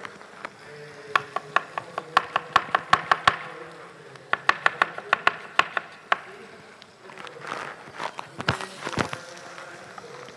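Chef's knife chopping onion on a cutting board, dicing it fine (brunoise): two quick runs of sharp knocks at about five strokes a second, then a few scattered strokes near the end.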